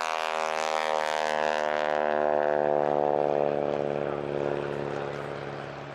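North American Harvard IV's Pratt & Whitney R-1340 Wasp radial engine and propeller running at high power on a low pass, a loud pitched drone that sinks slightly in pitch and fades as the aircraft moves away over the last couple of seconds.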